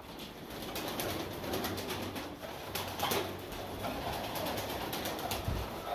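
Flock of Sialkoti pigeons feeding on grain: many quick, light pecking clicks, with cooing in the background.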